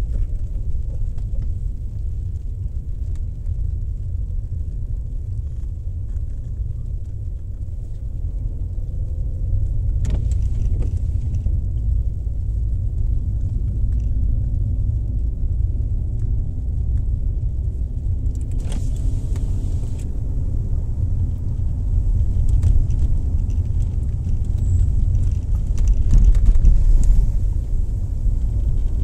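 Car heard from inside the cabin while driving on a wet unpaved road: a steady low rumble of tyres and engine, with a few knocks and rattles about ten seconds in and again a little before twenty seconds, growing louder near the end.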